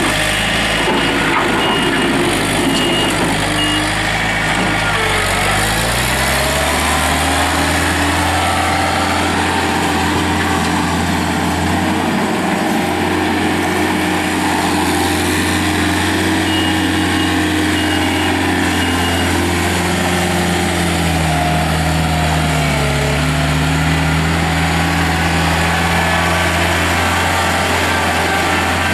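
John Deere 110 tractor loader backhoe's Yanmar diesel engine running. Its speed rises about five seconds in, holds at the higher pitch, and sags briefly once about two-thirds through. A faint high beeping sounds in short runs twice.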